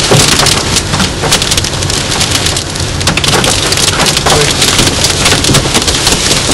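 Heavy rain hitting a car's windscreen and body during a severe thunderstorm, a loud dense patter of many sharp hits.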